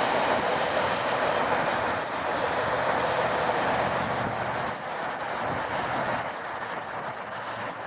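Empty grain cars of a fast-moving unit freight train rolling past, a steady rushing noise of steel wheels on rail that eases a little in the second half.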